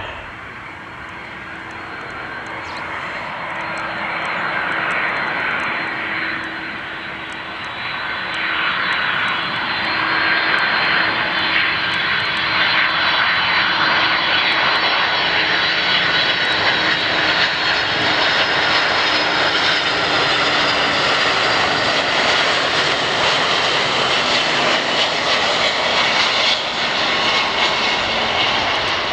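Jet airliner's engines at takeoff power: a continuous roar that builds over the first ten seconds or so, then holds steady and loud.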